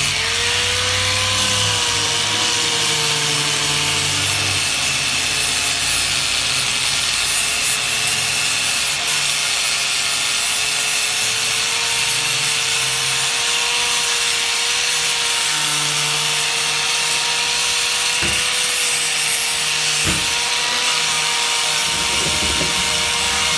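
Power sander running steadily with an even motor hum, its pad grinding down dried Bondo body filler.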